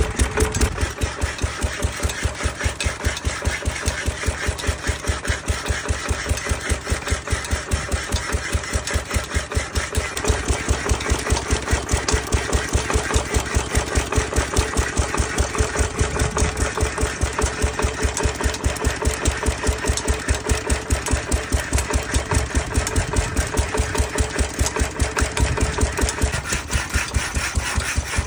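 Ruston Hornsby single-cylinder stationary engine running steadily with a fast, even beat.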